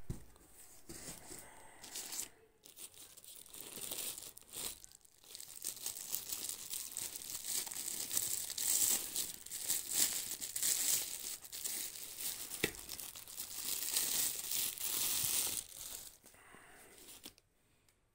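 Clear plastic bag crinkling and crackling as a brass hourglass is handled and pulled out of it, among rustling crumpled newspaper packing. The crackling is loudest in the middle and stops about a second before the end.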